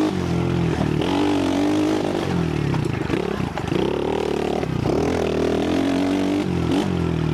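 Trailmaster 125cc single-cylinder four-stroke pit bike engine being ridden, its pitch rising and falling over and over as the throttle is opened and rolled off along the trail.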